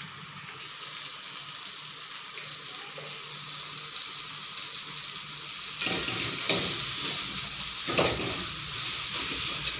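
Chopped onion and tomato masala sizzling as it fries in a wok. The sizzle grows louder about four seconds in, and a metal spatula scrapes and stirs through it a few times near the end.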